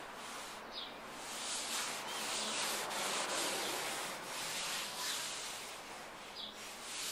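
Sandpaper on a hand sanding block rubbing back and forth over the painted steel roof of a 1986 Ford Mustang, taking it down toward bare metal. A steady scratchy hiss that swells and eases with the strokes.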